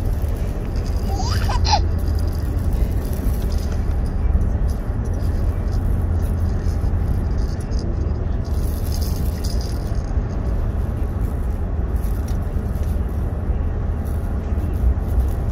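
Steady low rumble of road and engine noise inside a moving vehicle's cabin, with a brief high baby squeal about a second and a half in.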